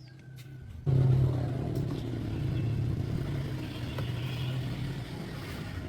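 Small car engine running, jumping suddenly louder about a second in and then easing off slowly with a steady low hum.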